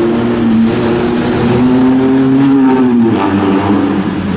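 Small scooter engines accelerating through a city intersection over steady traffic noise. One engine note climbs in pitch through the middle, then drops away about three seconds in.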